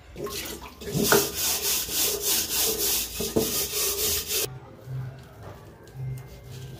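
Hands scrubbing and rubbing inside an aluminium bowl: a rhythmic rasping rub of about three to four strokes a second, stopping about four and a half seconds in, after which it is much quieter.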